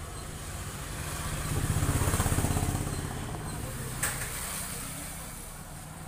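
Front-loading washing machine draining: the drain pump runs with a low, steady, pulsing hum that swells louder for a second or two in the middle. A single sharp click comes about four seconds in.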